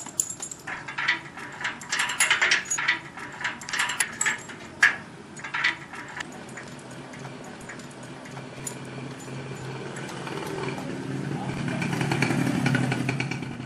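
A metal chain and padlock rattling and clicking against a steel bar gate as it is locked. A low rumble then swells toward the end.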